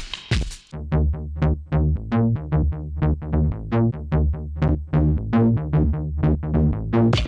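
Electronic synthesizer bass line from a sample clip: short plucked low notes, about four a second, stepping among a few pitches, after a brief drum hit at the start.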